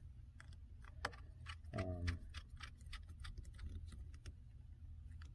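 Light, quick, irregular clicks of a small screwdriver turning and seating the big display-hinge screws of a MacBook Pro, about four or five clicks a second. A short hum of voice comes about two seconds in.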